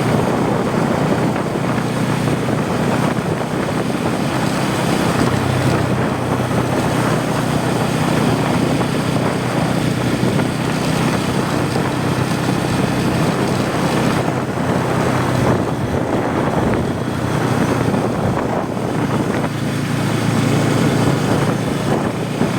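Bajaj Pulsar N250's single-cylinder engine and exhaust running steadily while the bike cruises on the road, with wind rushing over the microphone.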